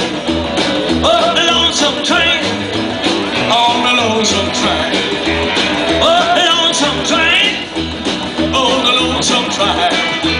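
Live rockabilly band playing a song: upright double bass keeping a steady walking beat under acoustic rhythm guitar and electric lead guitar.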